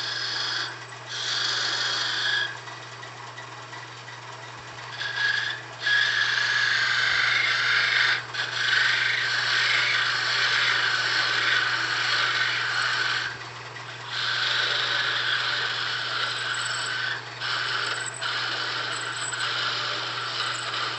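Wood lathe running with a steady low hum while a hand-held turning tool cuts a small spinning hard-maple spindle. The cutting noise comes in passes of a few seconds each, with short breaks between them.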